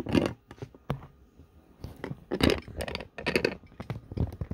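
Handling noise of a phone being set up to film a tabletop: a string of separate knocks, scrapes and light clatter, about five of them.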